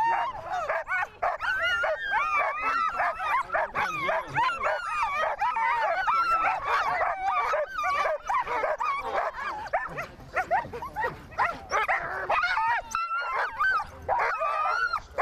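Many sled dogs barking and yelping together in a dense, overlapping chorus that barely lets up, with a short lull about thirteen seconds in.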